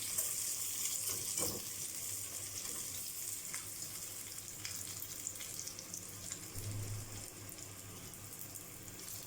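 Oil sizzling in a pan with a steady hiss as dried red chillies, shallots, garlic and cumin fry for a rasam tempering, easing off slightly. There is a single light knock about a second and a half in.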